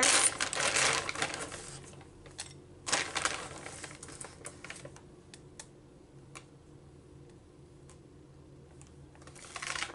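Semi-sweet chocolate chips being shaken out of a plastic bag into a measuring spoon: a rustle with a patter of small clicks for the first couple of seconds, another short burst about three seconds in, then a few scattered clicks.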